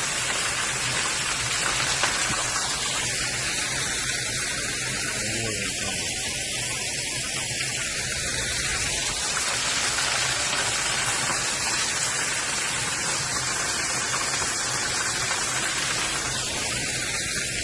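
Water running down a low, mostly dried-up waterfall, a steady rushing hiss.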